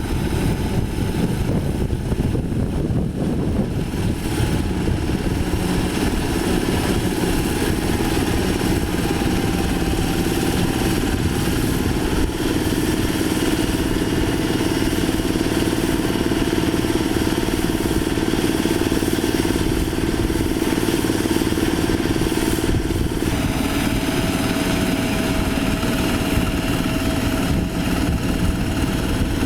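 Diesel engine of a Quick H-140R light rice harvester running steadily while the machine works. A droning tone in the engine sound grows stronger about twelve seconds in, and the sound shifts slightly about two-thirds of the way through.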